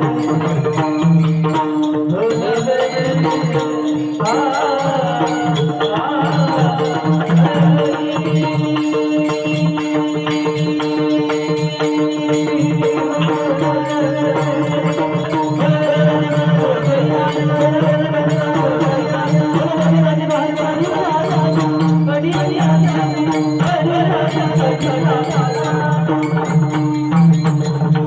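A male voice singing a Marathi devotional song to a Bhairavi tune, over a steady sustained drone with light rhythmic percussion.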